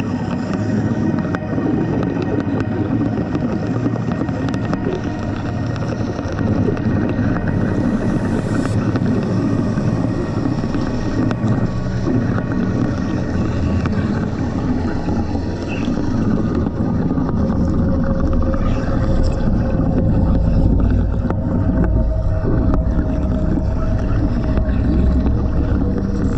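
Steady, dense underwater crackling and rumbling, heard through a diver's camera in the water. The deep rumble grows heavier in the last few seconds.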